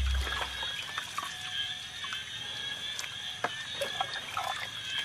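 Water trickling and dripping, with scattered small clicks and knocks, over a steady high hum in the background.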